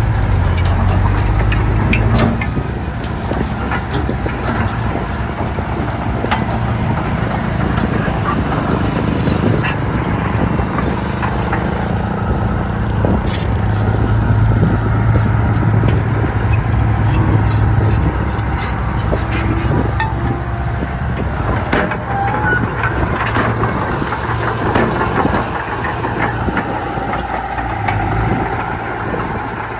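Heavy diesel earthmoving machinery running under load, the engine note swelling and easing several times, with scattered metallic clanks and squeaks.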